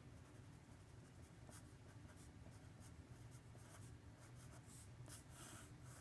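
Sharpie pen writing on paper: faint, irregular short strokes of the tip across the page.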